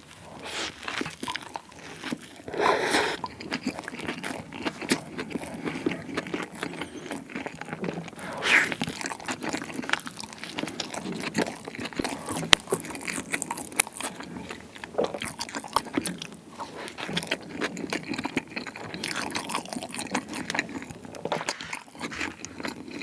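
Close-miked biting and chewing of a bburing-sauce egg-salad sandwich: wet mouth sounds and soft crunching, with louder bites about three and eight and a half seconds in.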